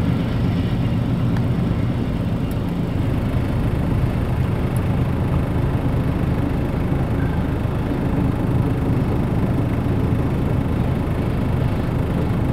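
Freight train hopper cars rolling past, a steady rumble of steel wheels on the rails.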